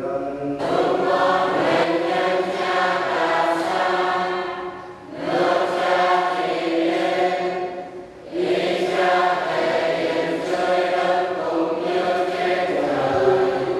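Church choir singing a sung part of the Catholic Mass in three long phrases, with short breaks about five and eight seconds in.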